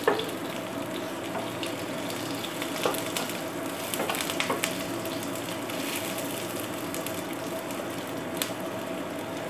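Onion wedges frying in hot mustard oil: a steady sizzle with scattered pops and crackles, stirred now and then with a wooden spatula. A faint steady hum runs beneath.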